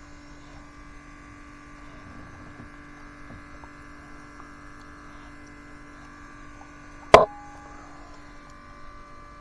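Steady electric hum of a small motor, most likely the smoke machine's pump pushing smoke into the vacuum system during a leak test. A single sharp click about seven seconds in.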